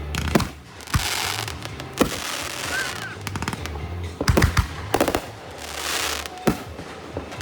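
Fireworks going off: single sharp bangs every second or so, a quick rattle of reports about four seconds in, and crackling hiss from the bursts in between.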